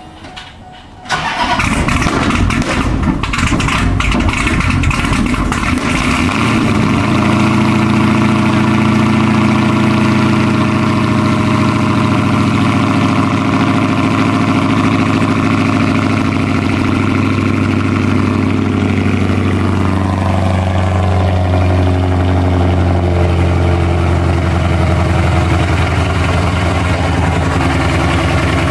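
Dodge Hellcat's supercharged 6.2-litre Hemi V8 starting: it cranks and catches about a second in, runs roughly for a few seconds, then settles into a steady, loud idle that drops a little lower about two-thirds of the way through.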